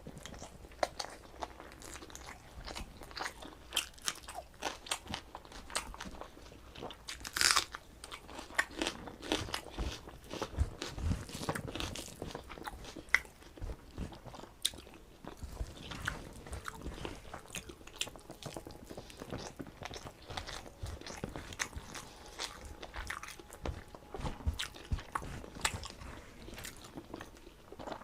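Close-miked eating: a person chewing and biting fried leafy greens with rice and dal, many small crisp crunches and wet chewing sounds, with one louder crunch about a quarter of the way through.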